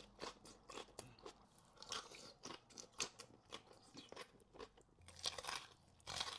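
Close-miked chewing: a steady run of wet mouth clicks and soft crunches as food is bitten and chewed, a little louder about five seconds in.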